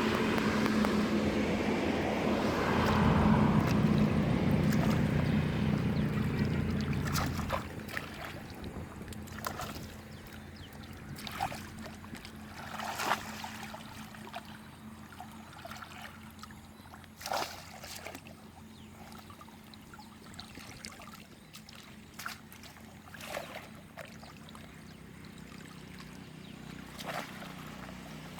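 A steady motor hum that cuts off about seven and a half seconds in, followed by water trickling with scattered small splashes every second or two.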